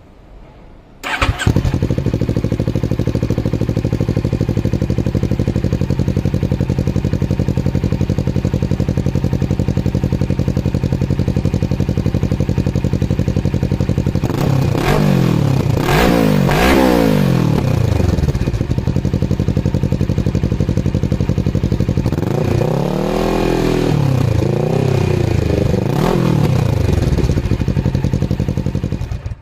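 Kawasaki Ninja 650's parallel-twin engine heard through its exhaust. It comes in abruptly about a second in and idles steadily. Two sets of quick throttle blips follow, about three in each set, with the pitch rising and falling back to idle.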